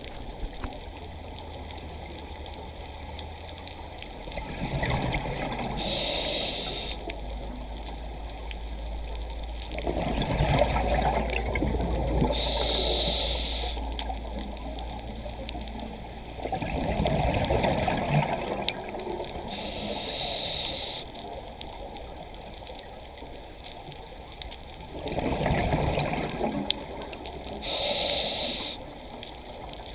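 A scuba diver breathing underwater through a regulator, about four breaths roughly seven seconds apart. Each breath is a gurgling burst of exhaled bubbles followed by a short hiss of inhaled air.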